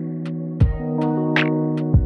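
Background electronic music with a steady beat of deep kick-drum thuds, snare hits and short hi-hat ticks over held synth chords.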